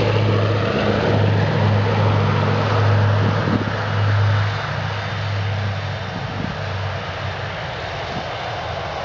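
Boeing B-29 Superfortress's four Wright R-3350 radial piston engines droning loudly as it passes low with gear down on landing. The sound grows fainter after about four and a half seconds as it settles onto the runway and rolls away.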